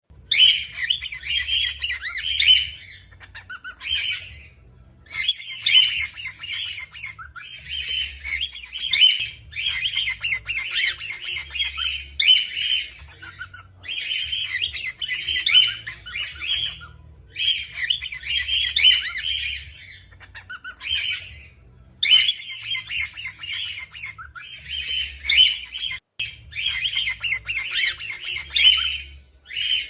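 Cockatiel singing: bouts of rapid chirps and whistles, each a few seconds long, with short pauses between.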